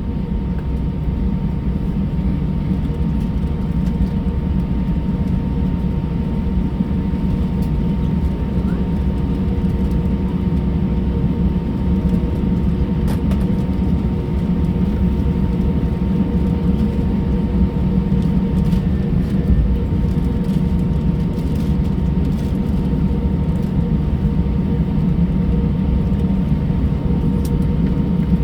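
Steady cabin noise inside an Airbus A320 during taxi: a low engine and airframe rumble with a steady hum made of a few held tones, holding level with no spool-up.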